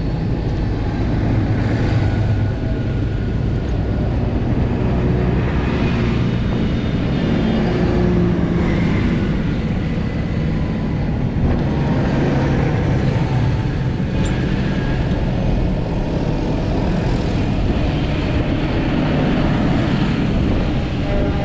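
A line of large farm tractors driving past one after another, their diesel engines running and big tyres rolling on the road. The engine note rises and falls as each tractor approaches and goes by.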